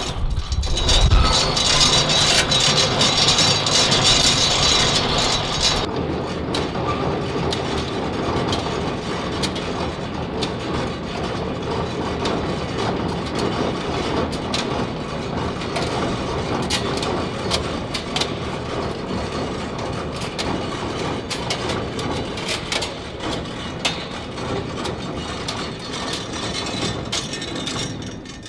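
Steel roll-up door being raised by its hand chain hoist: a continuous rapid clatter of chain links running over the hoist and slats rattling as they coil. Louder and brighter for the first six seconds or so, then duller and more even.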